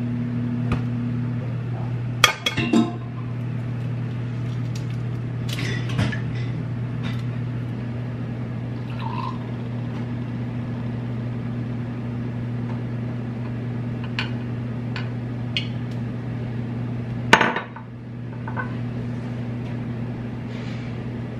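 Kitchen baking preparation: liquid poured from a glass measuring cup into a mixing bowl, with clinks of glass and dishes. A few sharp knocks, the loudest about two seconds in and near the end, over a steady low hum.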